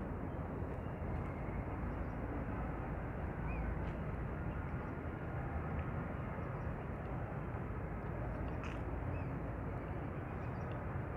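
Steady outdoor background noise, a rumble and hiss heavy in the low end, with a couple of faint bird chirps.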